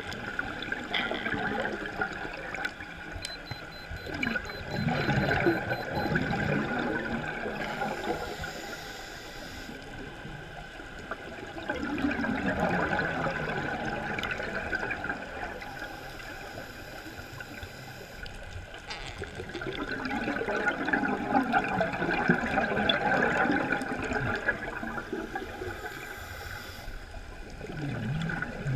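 Scuba diver's exhaled bubbles from the regulator gurgling past the underwater camera, in long swells about every eight seconds with quieter stretches between as the diver breathes in.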